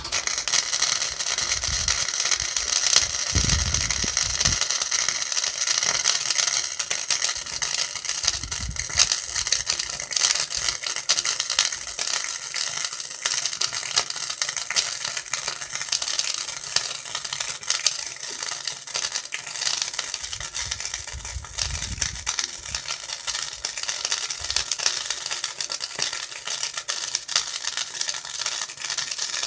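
Gasless flux-core MIG welder arc crackling steadily as a bead is laid, striking up abruptly at the start.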